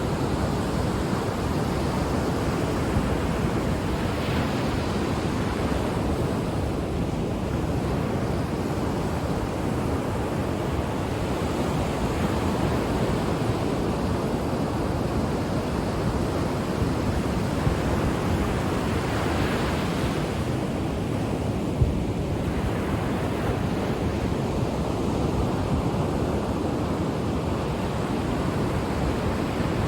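Ocean waves breaking and washing on the shore: a steady rush of surf that swells gently every so often, with some wind on the microphone.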